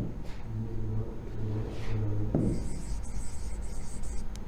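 Pen strokes on a writing board as a word is written, heard as a low rubbing rumble in four short stretches, with a knock about two and a half seconds in.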